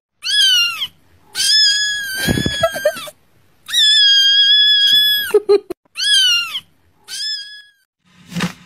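Kitten meowing: five high calls that rise and fall, the second and third drawn out to well over a second, with a couple of short low knocks in between.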